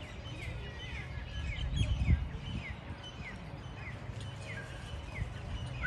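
A bird calling over and over in short, quick falling notes, about two a second, over a low rumble.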